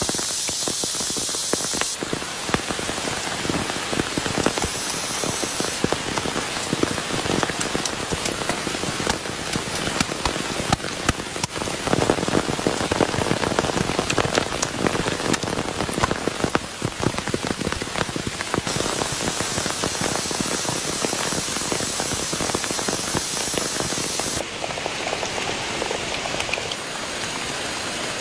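Heavy rain falling steadily, with many sharp individual drops hitting a nearby surface. The character of the rain changes abruptly a few times.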